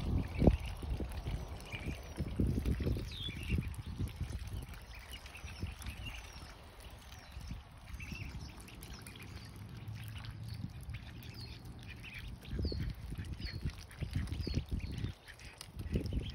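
A flock of ducklings peeping: many short, high, falling chirps, busiest in the second half. Bursts of low rumbling noise come and go, loudest at the start and near the end.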